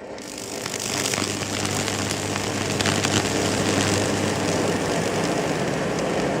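High-voltage arc from a 2000-volt microwave oven transformer burning along a tree branch: a steady buzzing hum with hissing crackle and a few sharp snaps, building up over the first second.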